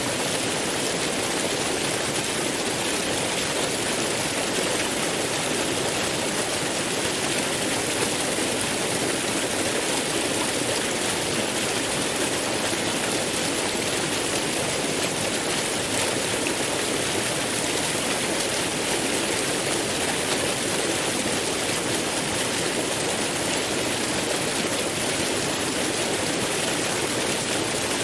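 A massive waterfall: a steady, unbroken rush of falling water with no swells or pauses.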